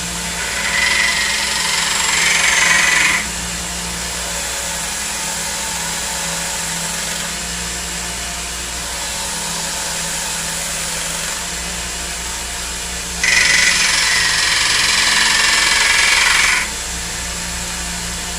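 Belt grinder running steadily with an 800-grit sharpening belt. Twice a knife edge is pressed to the belt, adding a louder, higher grinding hiss: once from about a second in for two seconds, and again about two-thirds of the way through for three seconds.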